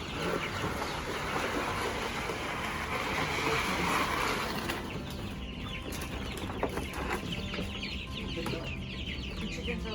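A flock of young Cornish Cross broiler chicks peeping, many short, high cheeps overlapping. A steady rushing noise runs under them for about the first half.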